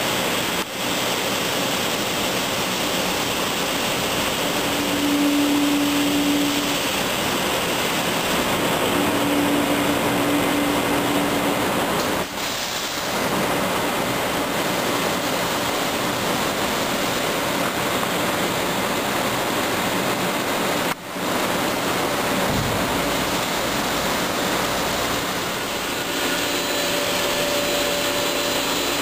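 Hofler 1500 CNC gear grinder at work on a large gear: a steady rushing hiss of coolant spray and the grinding wheel, with a faint hum that comes in twice in the first half. The sound dips briefly three times.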